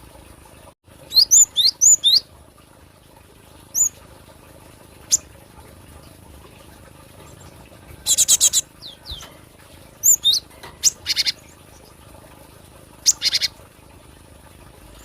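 Cinereous tit (gelatik batu) calling: a quick run of high whistled notes about a second in, a few single sharp chirps, and short harsh buzzy calls about eight seconds in and again near the end.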